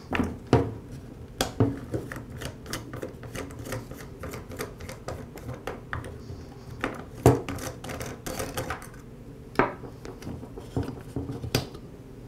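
Plastic clicks and knocks from a Ryobi string trimmer head being taken apart by hand, as the bump knob is twisted off and the spool lifted out. Runs of small quick clicks with a few louder knocks.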